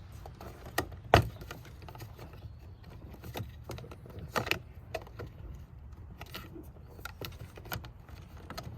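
Plastic door-panel trim being handled and pressed back into place on a car door: a scattering of short clicks and knocks, the loudest about a second in and another around four and a half seconds in.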